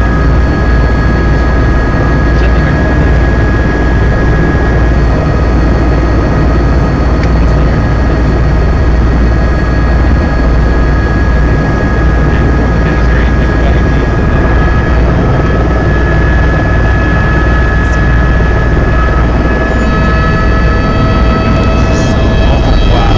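Helicopter cabin noise: the steady, loud rumble of the engine and rotor, with a steady high whine over it.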